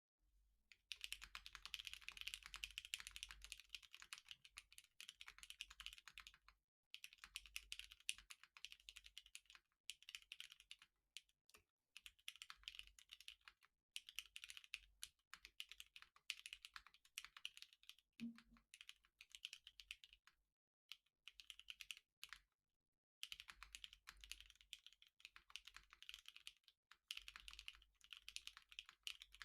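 Typing on a plateless custom mechanical keyboard with lubed Cherry MX Black Clear-Top linear switches, fitted with lighter 62g springs, and GMK keycaps. The keystrokes come in fast runs of several seconds, broken by brief pauses.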